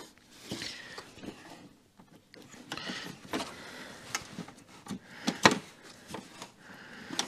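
Scattered light clicks and taps with some rustle from handling the unplugged ignition module connector and its cable in a car's engine bay. The sharpest click comes about five and a half seconds in.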